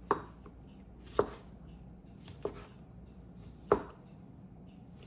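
Kitchen knife dicing cold baked potatoes, four chops about a second apart.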